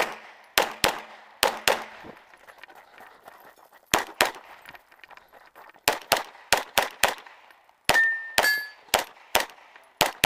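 Rapid 9mm pistol shots from a Glock 17L, mostly fired in quick pairs with short pauses between strings. About eight seconds in, a hit steel target rings briefly with a high metallic tone.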